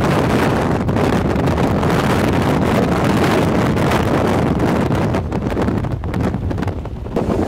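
Strong wind buffeting the microphone in a loud, gusty roar, easing somewhat in the last couple of seconds.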